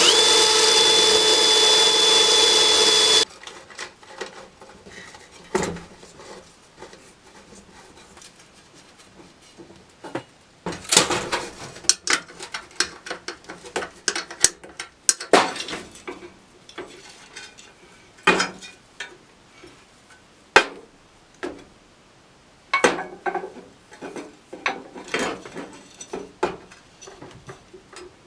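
A power drill spins up with a rising whine, runs steadily for about three seconds and stops suddenly. After that come scattered clicks, knocks and metallic clinks of tools and metal parts being handled and set down.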